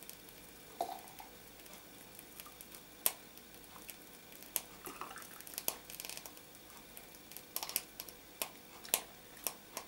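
Scattered light clinks and knocks of a mug against a pot and a glass jar while hot sugar syrup is scooped and poured into a three-litre jar of fruit compote for canning. The sharpest knock comes about three seconds in.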